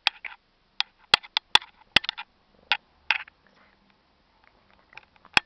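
A kitten's paws and nose bumping and tapping against the camera: irregular sharp clicks and knocks, several in the first three seconds and one of the loudest near the end, with faint scuffing between them.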